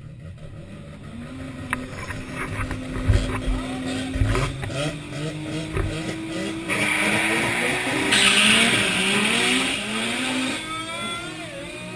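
Mazda RX-7 FC3S 13B rotary engine revving hard, its pitch climbing and dropping several times as it runs up and shifts. A loud hissing rush joins it for a few seconds past the middle.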